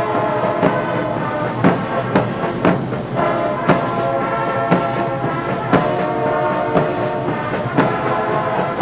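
Brass band playing a march, with a drum stroke about once a second.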